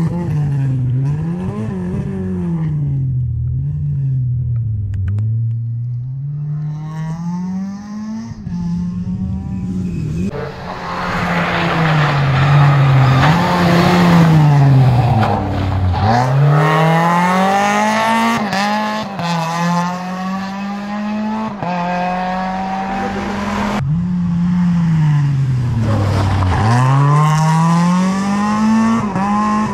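Renault Twingo rally car engine revving hard through the gears: the pitch climbs, drops at each shift or lift, and climbs again, over and over.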